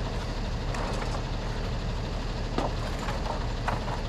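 Flatbed delivery truck's engine idling steadily, with a few sharp knocks of wooden roof trusses being handled.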